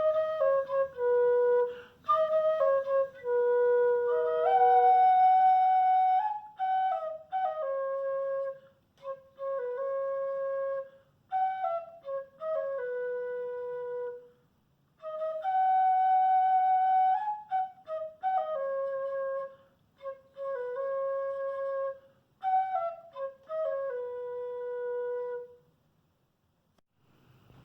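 Mbyá Guaraní mimby'i, a small takuapí cane flute with a beeswax mouthpiece, playing a traditional melody in short phrases of notes separated by brief pauses, the same phrase coming back more than once. The playing stops about a second before the end.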